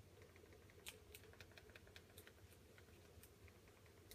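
Faint, irregular clicking of TV remote-control buttons pressed in quick succession to move across and select letters on an on-screen keyboard, over a low steady hum.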